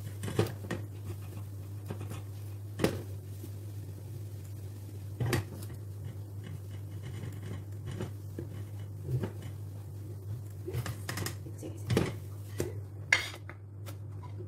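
Slotted spatula scraping and tapping against a nonstick frying pan as a pancake is turned and lifted out: scattered short clicks and clatters over a steady low hum.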